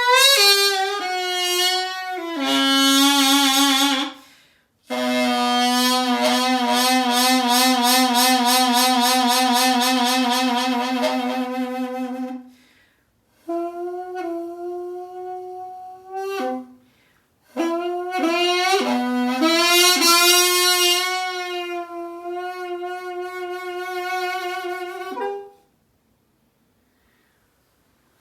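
Piri, the Korean double-reed bamboo oboe, playing a slow solo improvisation: long held notes with wide vibrato and sliding pitch bends, in phrases broken by short pauses.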